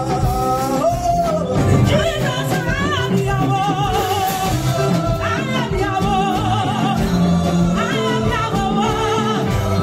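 Live church praise music: an Igbo-language gospel song sung with vibrato over a full band, amplified through the hall's loudspeakers.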